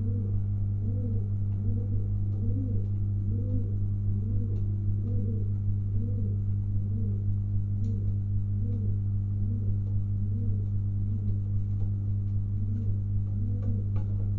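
Domestic pigeon cooing over and over, short low rising-and-falling coos about twice a second, over a steady low electrical hum.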